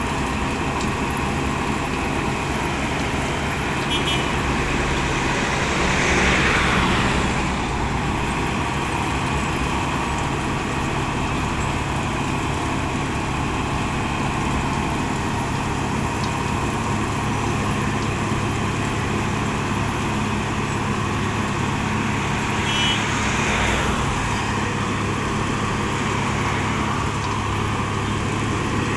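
Heavy diesel road-works machinery for asphalt milling and sweeping running steadily, with a louder swell of grinding noise twice, about six seconds in and again near twenty-three seconds in.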